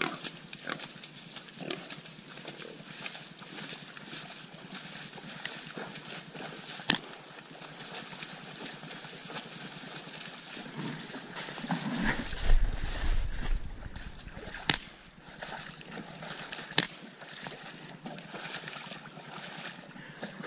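A suppressed Ruger 10/22 Charger .22 rimfire pistol firing about four sharp shots several seconds apart at a wounded wild hog. Between them, near the middle, the hog squeals and splashes as it thrashes in shallow floodwater; this is the loudest sound.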